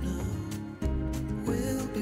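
Background music, its low notes changing about once a second.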